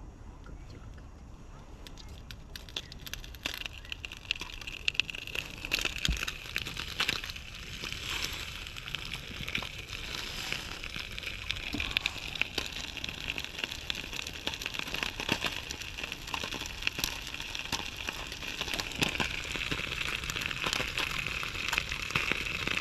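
Chicken pilaf sizzling and spattering as it heats, with a dense crackle of pops that starts about two seconds in and grows steadily louder.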